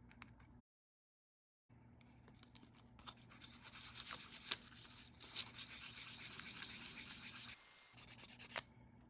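Rapid, noisy scrubbing or scraping, growing louder after a short silence, pausing briefly near the end and stopping with a sharp click.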